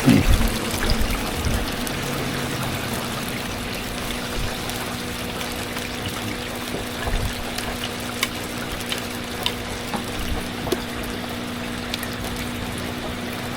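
Food sizzling steadily in hot frying oil, an even hiss with a low steady hum beneath it and a few light clicks.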